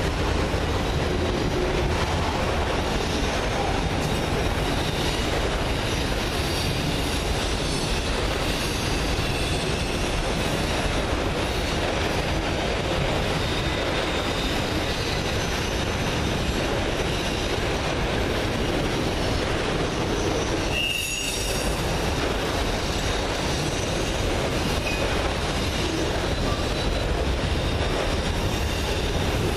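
Steady rolling rumble of CSX autorack freight cars passing at track speed, wheels clattering on the rails, with faint high wheel squeals now and then.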